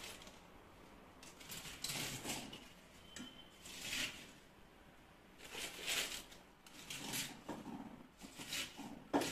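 Short, irregular rustles and light knocks, a second or so apart: hands packing pickling ingredients, garlic cloves among them, into a large jar.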